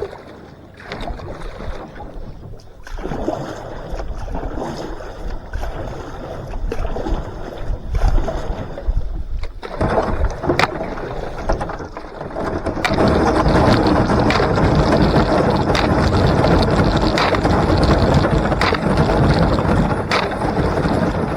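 Canoe being forced through thin new ice: the hull crunches and scrapes through it, with sharp cracks and knocks as the ice breaks. The grinding gets louder and steadier a little past halfway through.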